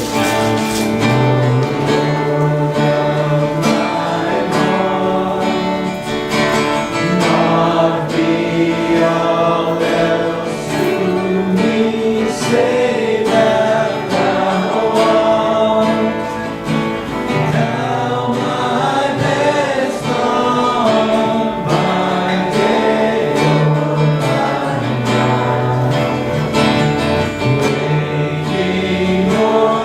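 Church worship music: voices singing a song with guitar accompaniment.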